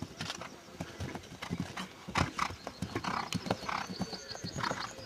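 Horse galloping over turf: a run of hoofbeat thuds, with one louder thud about two seconds in.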